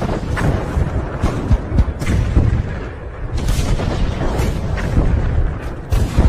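World War I artillery fire: a dense, continuous run of booms and gunshots, several a second, over a low rumble of distant guns.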